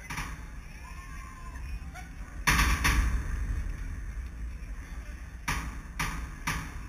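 Sharp knocks over a steady low wind rumble on the microphone: a loud pair about two and a half seconds in, and three quicker, weaker ones near the end.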